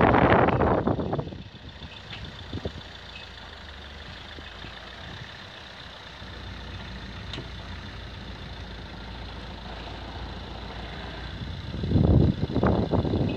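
Opel Corsa hatchback's engine running at low revs while reversing into a parking space. It swells loudly in the first second and again about a second before the end.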